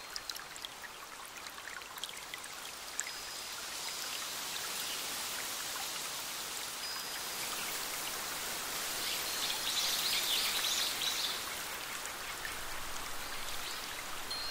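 Steady rushing and splashing of a small forest stream over a cascade. Over it come a few short, high bird whistles, and about ten seconds in a brief burst of high bird twittering.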